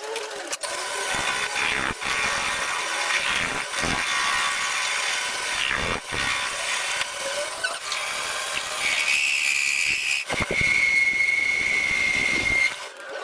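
Power tools working steel during a gear shaft repair, running in several short stretches that stop abruptly, with a steady high-pitched whine over the last few seconds.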